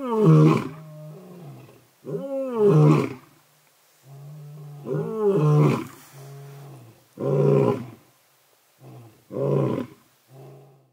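Two male lions roaring together in a bout: three long, full roars about two and a half seconds apart, then shorter roars tailing off into grunts near the end, with a low steady hum between the roars.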